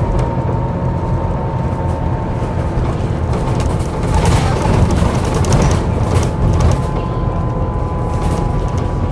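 Volvo B7TL bus's six-cylinder diesel engine running, heard from inside the bus, under a steady high groaning tone. A few brief rattles from the bodywork come in the middle.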